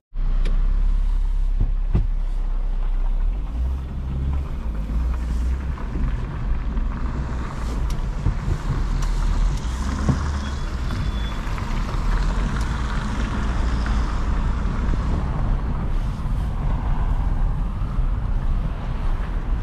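Lada Granta's four-cylinder petrol engine running steadily.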